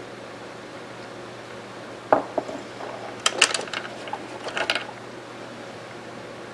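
Metal parts of a Mossberg 464 lever-action rifle clicking and clinking as they are handled: a cluster of sharp knocks and light metallic clicks lasting about three seconds, over a steady hiss.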